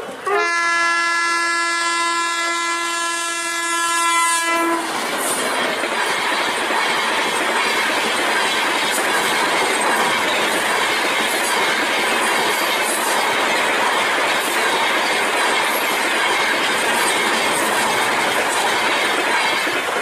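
An Indian Railways locomotive horn sounds one long, steady blast lasting about four seconds. The high-speed passenger train then rushes past, its wheels clattering over the rail joints.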